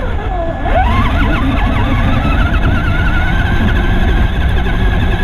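Traxxas Stampede 4x4 RC monster truck's electric motor and drivetrain whining, rising in pitch about a second in as it speeds up, then wavering with the throttle. Heard from a camera riding on the truck, under a heavy low rumble of wind and driving over sand.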